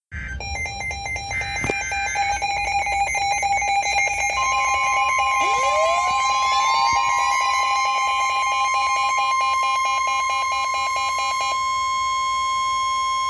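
NOAA Weather Radio alert tones: rapid electronic two-tone data chirps of the SAME header, then the steady 1050 Hz warning alarm tone from about four seconds in, held to the end, with other electronic tones and rising siren-like glides layered over it.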